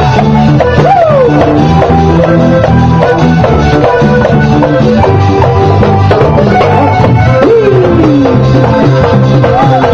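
Vallenato band playing live, with a diatonic button accordion leading in sustained chords and runs over a heavy bass line and a steady drum beat.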